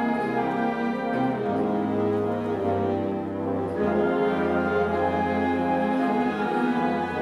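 School concert band playing a rondo: brass and woodwinds in sustained chords over a held low bass note.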